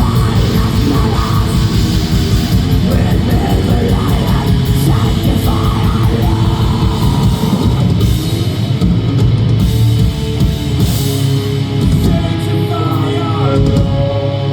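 Heavy metal band playing live through a PA: distorted electric guitars, bass and drum kit. The drumming is fast and dense for the first half, then thins out, leaving held guitar notes.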